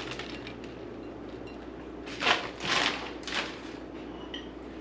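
Three short rustling noises about half a second apart as ingredients are added to tortilla chips, over a low steady hum.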